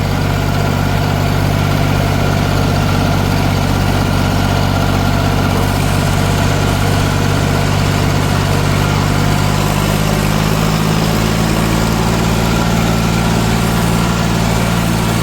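John Deere 5310 tractor's three-cylinder diesel engine running steadily under way, its pitch rising a little about two-thirds of the way through.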